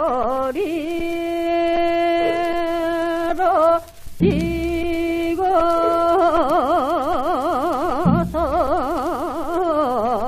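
Korean gasa singing from an old gramophone disc, with a narrow, muffled old-record sound. A single voice holds long notes with a wide, slow vibrato and breaks off briefly just before the middle. Two low drum strokes fall about four seconds apart.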